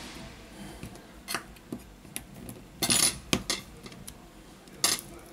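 Metal tweezers clicking and scraping against an opened smartphone's chassis and battery while the battery's adhesive pull tabs are worked loose: a handful of short, sharp clicks, the loudest cluster about three seconds in.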